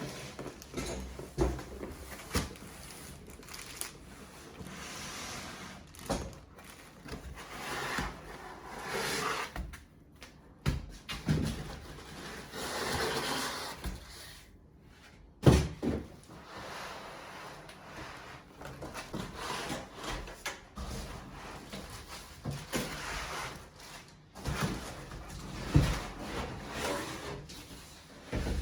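Packaging being handled during an unboxing: irregular knocks and thumps as things are moved and set down, with stretches of rustling between them. The loudest is a sharp knock about halfway through.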